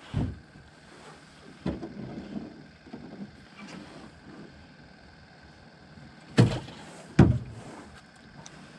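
Dull knocks and thumps against a small fishing boat's hull or deck. One comes right at the start, another about 1.7 s in, and the two loudest about six and a half and seven seconds in. A faint steady high whine runs underneath.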